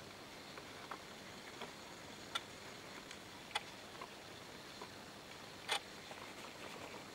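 Faint room tone broken by a few short, sharp clicks, the clearest about two and a half, three and a half and nearly six seconds in.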